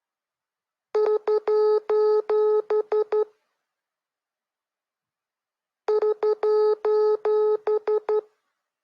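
Morse code sent as a beeping tone: short and long beeps of one steady pitch in two groups of about two seconds each, separated by a pause of nearly three seconds.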